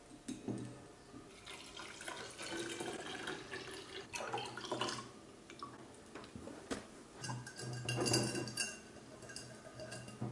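Milk pouring in a thin stream into a glass clip-top bottle, then the bottle's glass lid and wire clasp clinking as it is closed, with a few sharp glassy clicks near the end.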